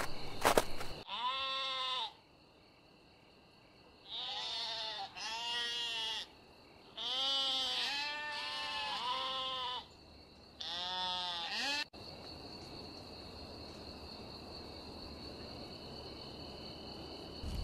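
Sheep bleating, about six drawn-out bleats spread over the first twelve seconds, played as a stage sound effect. After that only a faint steady hum remains.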